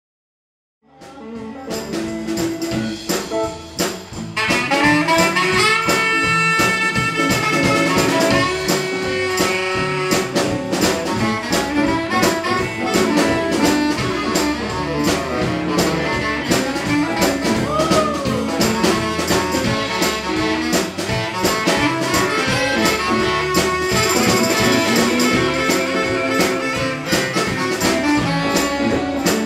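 Live blues band playing an instrumental passage on electric guitars, bass, drums and saxophone, with harmonica and tambourine. The music comes in about a second in and reaches full volume around four seconds in.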